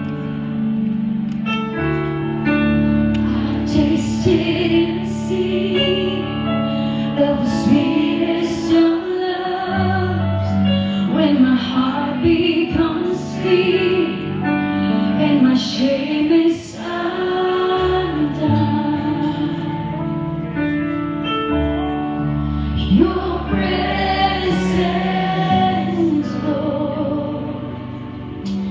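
A live worship band playing a slow song with a woman singing lead over sustained chords, electric guitars and drums with cymbal strokes.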